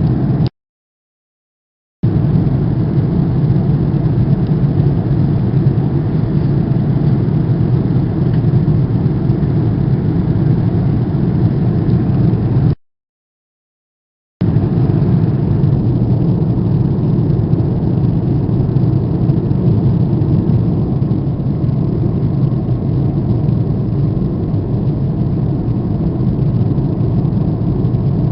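Steady low rumbling noise, like a vehicle running or wind on a phone microphone, broken twice by sudden cuts to silence about a second and a half long: just after the start and about halfway through.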